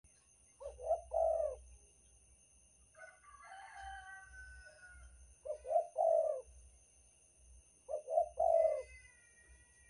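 Spotted dove cooing its three-note phrase three times: two short coos, then a longer drawn-out one. Higher, thin whistled bird notes sound between the phrases.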